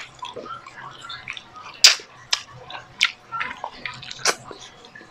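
Close-miked mouth sounds of a person eating grilled milkfish with his fingers: wet smacks and sharp clicks of lips, tongue and fingers, four loud ones spread through, over soft chewing.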